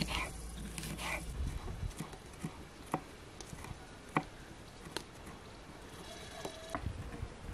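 Kitchen knife slicing a green pepper on a wooden log-slice cutting board: a series of sharp taps as the blade strikes the board, spaced about half a second to a second apart.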